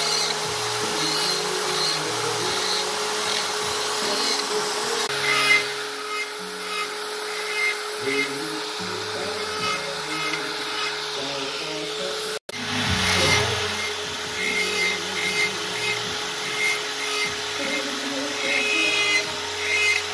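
Handheld electric rotary tool with a carving burr running steadily at high speed, grinding into wood with a constant whine; the sound drops out for an instant just past halfway.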